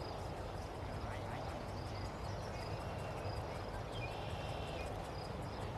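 Outdoor garden ambience: a steady background noise with short, high bird chirps scattered through it and faint indistinct voices.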